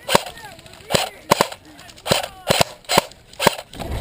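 Airsoft electric rifle (a CYMA CM035 AK74U) firing about eight single shots in quick succession, roughly two a second: suppressing fire to keep an opponent pinned.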